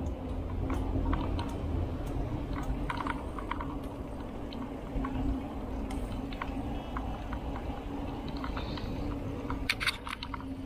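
Mountain bike riding along a paved path: steady low rumble of tyres and wind on the handlebar microphone, with a low hum and scattered clicks and rattles from the bike, a cluster of louder clicks near the end.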